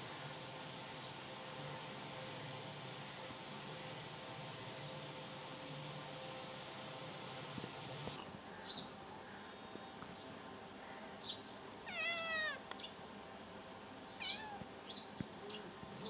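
Kitten meowing: a few short, high, falling mews, and one longer meow about twelve seconds in. For the first eight seconds a steady high-pitched insect drone runs underneath, then stops.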